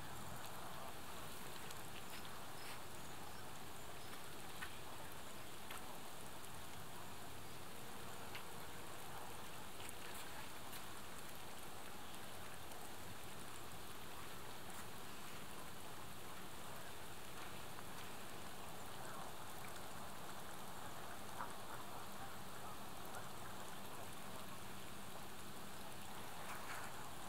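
Steady, even outdoor background hiss with a few faint ticks, and no clear single source standing out.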